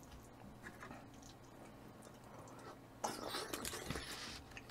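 A person chewing food with mouth noises: faint for the first three seconds, then louder for about a second and a half.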